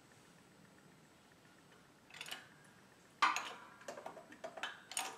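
Steel knife tang and hydraulic-press punch being handled on wooden blocks, lining up the punch on a handle pin. A brief rustle about two seconds in, then a sharp metal clink and a string of smaller clinks and scrapes.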